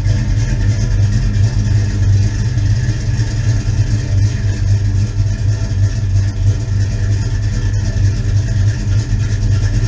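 1984 Chevy Silverado pickup's engine idling steadily.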